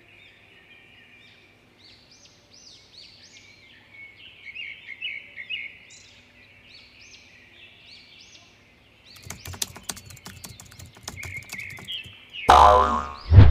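Ambience of many small birds chirping and twittering. From about nine seconds in, a run of rapid clicks joins, and about a second before the end there is a loud, sudden, deep burst.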